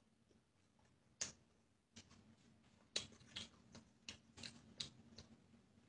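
Near silence with a handful of faint, short clicks of someone eating.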